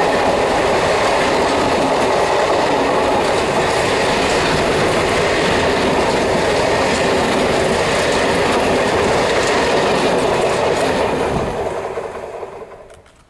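Container freight train rolling past close by: a steady, loud noise of steel wheels running on the rails under the loaded flat wagons, dying away quickly near the end as the train passes.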